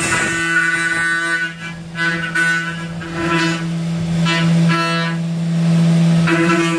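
Haas CNC vertical mill roughing an aluminium paintball marker body with an end mill in an aggressive 3D cut. Over a steady spindle hum, a pitched cutting whine swells and fades several times as the tool bites into the metal.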